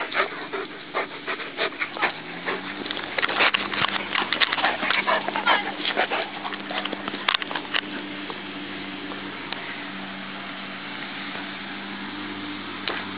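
A dog panting close to the microphone, in rapid strokes that are loudest around the middle and then give way to a steadier hiss. A steady low hum runs underneath from about two seconds in.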